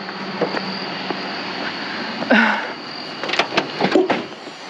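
A vehicle running, with a steady rumble and hiss, then a cluster of sharp knocks and clunks near the end.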